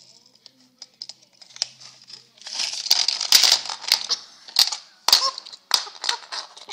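A small plastic toy car and its plastic loop track being handled by hand: rustling and scraping, then several sharp plastic clicks in the second half.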